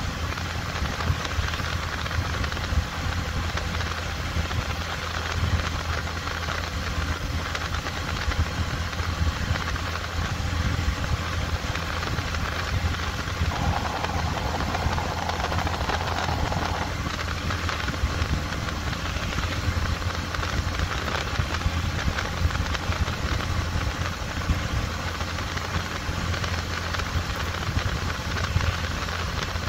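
Bajaj commuter motorcycle's single-cylinder engine running steadily while riding at road speed, with a constant hiss of wind and road noise over it.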